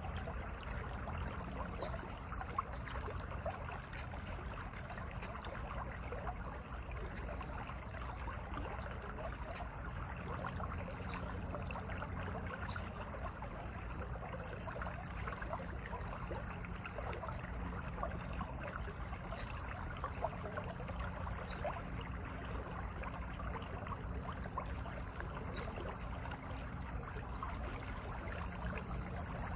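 Mountain valley stream flowing steadily, an even rush of water, with faint short high-pitched chirps now and then and a longer high tone near the end.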